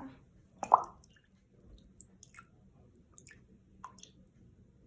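Small handling sounds: faint scattered clicks and soft wet squishes, with one short louder sound about a second in.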